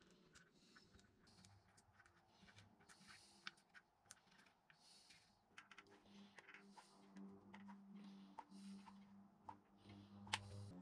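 Faint, irregular clicking and short scratchy scrapes of a tool working a block of wood.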